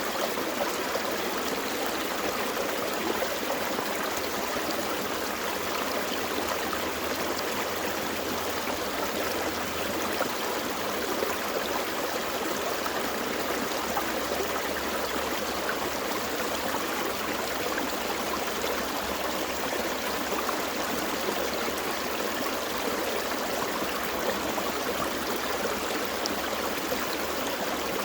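Gentle forest stream flowing, a steady, even rush and babble of water.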